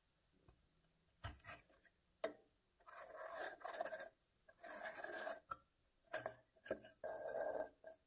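Threaded brass cap of an antique oil can being unscrewed by hand, metal threads scraping against each other in several short bursts as it is turned, then the pump tube sliding out of the neck.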